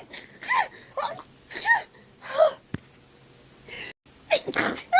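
A girl sneezing over and over in quick succession, a sneeze roughly every second, with a brief break about four seconds in before the sneezing starts again.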